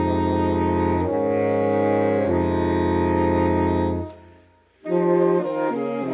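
Saxophone quartet (soprano, alto, tenor and baritone saxophones) playing held chords that change twice, then breaking off for a brief rest of near silence about four seconds in before coming back in with shorter, more detached notes.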